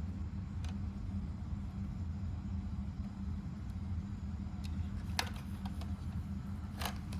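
A steady low hum, with two light clicks about five and seven seconds in.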